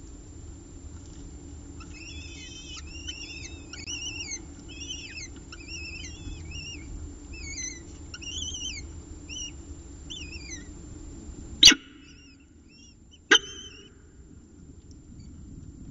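Downy peregrine falcon eyases giving rapid, high, thin begging chirps as they are fed, several a second, thinning out after about ten seconds. Near the end come two loud sharp clicks about a second and a half apart, and the low steady hum underneath drops away at the first one.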